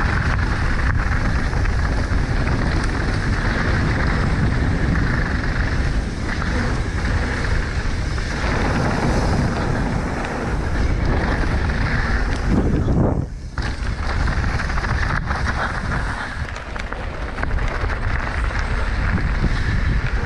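Mountain bike descending a dry, dusty dirt trail at speed: wind rushing over the microphone and tyres rumbling and rattling over dirt and rocks, with a short lull about thirteen seconds in.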